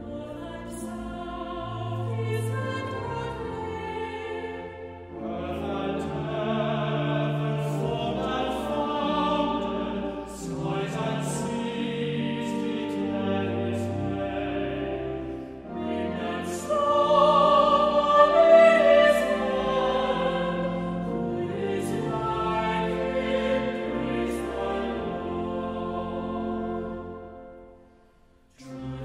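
Classical-style choral music: a choir singing sustained chords with instrumental accompaniment. It dips almost to nothing near the end, then a new phrase begins.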